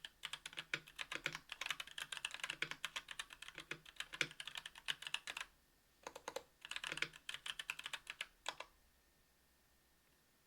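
Typing on a KBDfans Tofu 60% aluminium mechanical keyboard with Domikey x Kailh Cyberpunk Pink Purple 62 g tactile switches on an aluminium plate, under GMK keycaps: rapid key clacks, a brief pause a little over five seconds in, a last burst of keystrokes, then the typing stops a little under nine seconds in.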